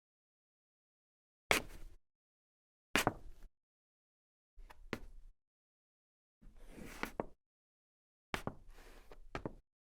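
A woman's footsteps played as five short separate sound-effect takes, each one to three sharp steps, with dead silence between them.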